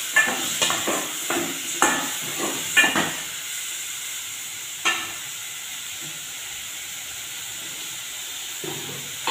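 A steel spoon stirring and scraping dried fish, onions and tomatoes frying in an aluminium pot: a quick run of scrapes and clinks over the first three seconds and one more clink near five seconds, over a steady sizzle.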